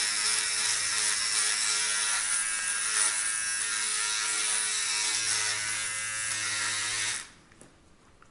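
Electric beard trimmer buzzing steadily as it cuts mustache stubble, then switched off about seven seconds in.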